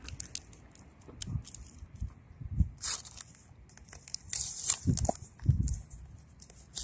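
Crinkling and rustling of a foil blind-bag wrapper and packaging being handled, in irregular short bursts with clicks and a few low thumps.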